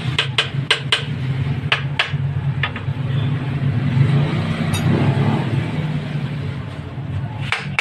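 Metal engine parts and tools clinking sharply several times in the first few seconds and again near the end, over a steady low mechanical hum.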